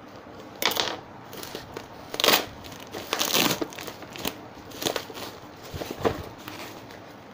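Bubble-wrap packaging being handled and pulled apart by hand while unwrapping a parcel: a string of irregular crinkling rustles, loudest a little over two seconds in and again around three and a half seconds.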